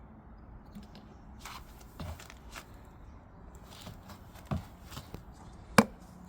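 Scattered sharp clicks and plastic knocks from a motor-oil bottle being handled, a handful of separate taps with the loudest one near the end.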